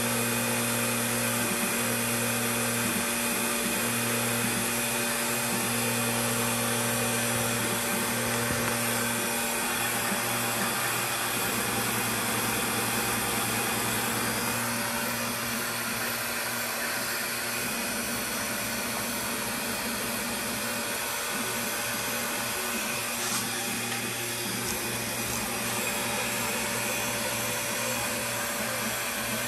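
ProLIGHT 1000 CNC mill running a test G-code program under its new Mach3 controller and stepper drivers: a steady motor whir with humming stepper-motor tones. The hum changes pitch about ten seconds in as the axis moves change.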